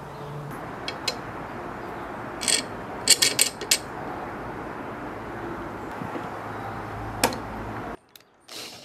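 Light metallic clicks and clinks, clustered about three seconds in, as a hand-plane blade and a nut are set and fitted onto a wooden block, over a steady hiss of room noise. The sound cuts off abruptly near the end.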